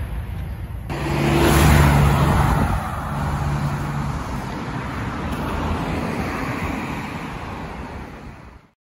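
Road traffic: starting about a second in, a car passes close by, its engine hum loudest about two seconds in, then steady traffic noise that fades out near the end.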